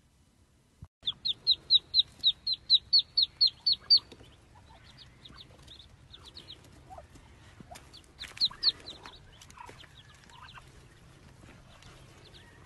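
A bird calling: a quick run of about a dozen short high calls, roughly four a second, starting about a second in. Scattered fainter calls follow, with a louder pair later on.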